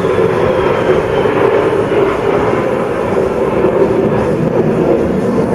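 Electric buffer running steadily as a knife blade is polished on its coarse buffing wheel.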